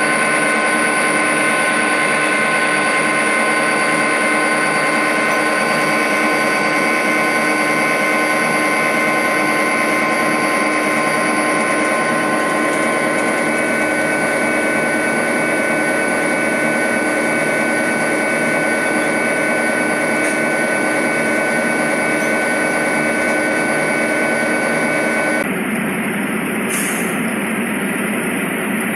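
Model coal train running past on the layout: a steady mechanical whirring with several steady whining tones. About 25 seconds in, the sound changes suddenly and the whine stops.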